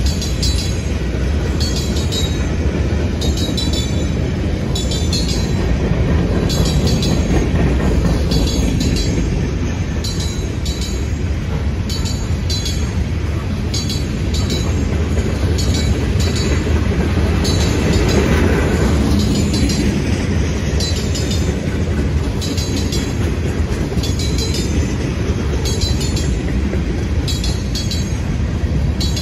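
Freight cars rolling past close by: a steady low rumble of steel wheels on rail, with clusters of clickety-clack every second or so as the wheel trucks cross rail joints. About two-thirds of the way through, a brief tone falls in pitch.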